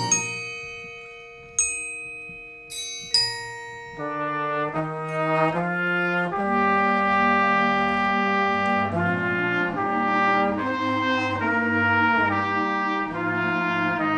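Band music: four struck bell-like mallet-percussion notes ring out and decay over the first few seconds, then brass comes in about four seconds in, playing slow, sustained chords that change every second or so.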